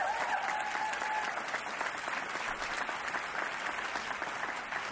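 Audience of a banquet hall applauding steadily, with one person's held cheer in the first second or so.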